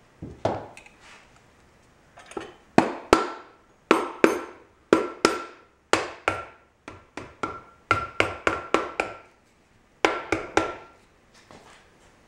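Rubber mallet tapping the finned cast end bell of a Dayton 2 hp electric motor to seat it during reassembly. About two dozen quick blows come in runs at roughly three a second, each with a short metallic ring.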